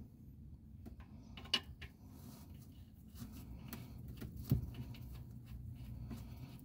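Faint clicks and light metal scraping as a plug on a Smart car's transmission case is worked by hand, with a sharper click about a second and a half in and another about four and a half seconds in, over a low steady hum.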